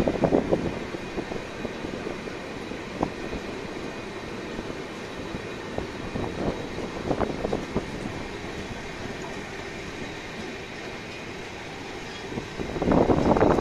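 Train rolling along the track: a steady rumble of wheels on rail with a few scattered clicks, and a much louder rush setting in near the end.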